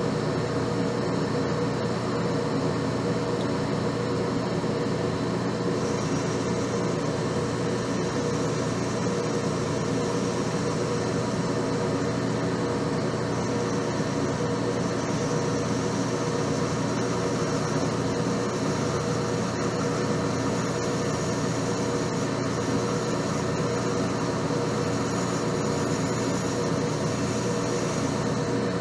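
Metal lathe running steadily, its motor and gearing giving an even hum, while a cutoff tool is fed into the turning shaft to cut a relief groove 75 thousandths deep.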